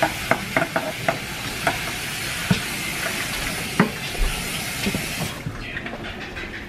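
Kitchen tap running water into a sink as a bowl is rinsed, with several sharp clinks of dishes against the sink. The water stops abruptly about five seconds in.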